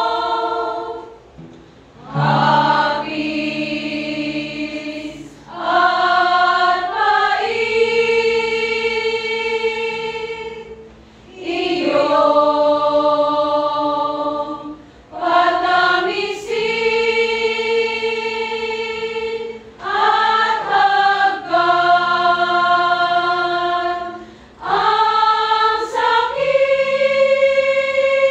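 Choir singing a slow hymn chorus in long held chords. The phrases last about three to five seconds each, with short breaks for breath between them.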